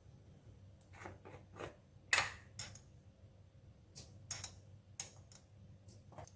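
A string of short clicks and light clatters from small objects being handled, about a dozen over several seconds, the loudest about two seconds in.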